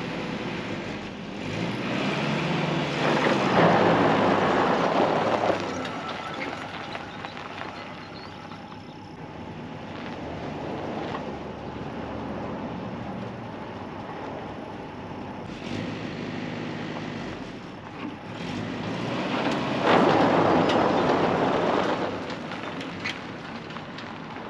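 Jeep engine running, surging loudly twice, about three seconds in and again about twenty seconds in, as it tows a half-track's steel track-and-bogie assembly off the chassis, dragging it across the ground.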